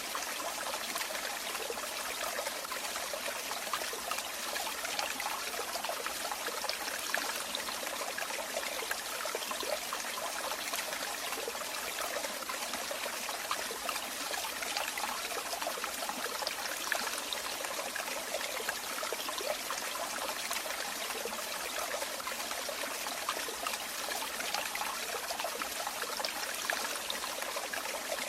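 Running water flowing steadily, an even rush with fine irregular splashes and little deep rumble.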